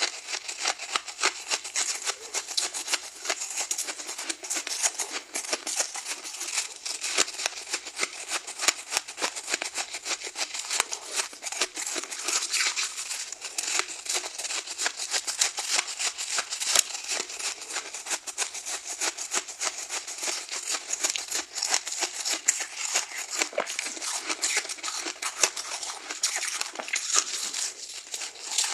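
Soft, freshly frozen ice being bitten and crunched up close: a dense, continuous run of rapid crisp crackles and crunches.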